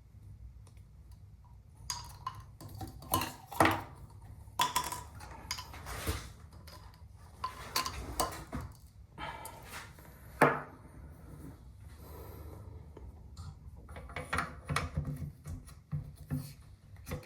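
Irregular metallic clicks and clinks of a bolt-action rifle and its steel headspace gauges being handled, as the gauges are readied for the headspace check. The sharpest clacks come about three and a half and ten and a half seconds in.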